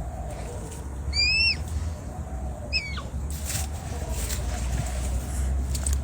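Red panda calling: two high, squeaky whistled calls, the first about a second in arching up and then down, the second shorter and falling.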